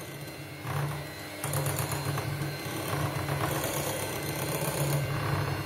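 Electric hand mixer running, its twin metal beaters whipping chilled cream in a glass bowl, a steady motor whir that gets louder about a second and a half in.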